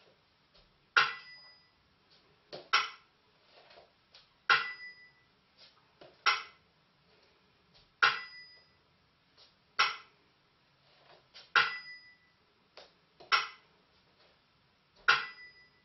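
Burmese si and wa keeping the dance beat: a small hand-cymbal stroke that rings briefly alternates with a dry clapper click, one stroke about every one and three-quarter seconds.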